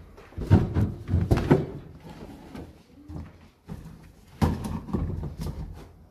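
Two spells of knocking and clattering, about four seconds apart, as of parts and wiring being handled inside a car's interior.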